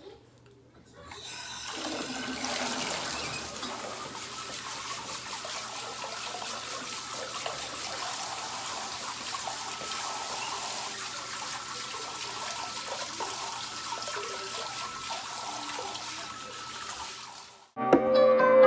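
Water running steadily from a tap, starting about a second in and cutting off abruptly near the end, where music begins.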